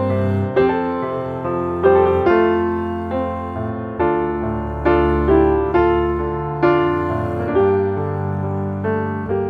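Background piano music, slow and gentle, with notes struck about once or twice a second and held.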